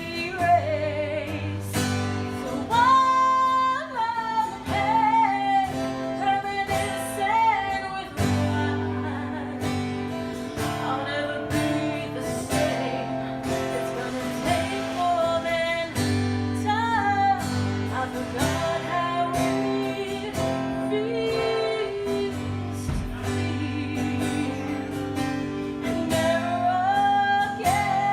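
A woman singing a song with guitar accompaniment, holding long wavering notes over steady chords.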